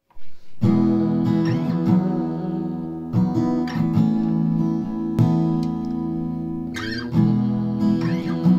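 Instrumental music: a strummed acoustic guitar playing slow chords, coming in about half a second in and struck again every second or two, each chord left to ring.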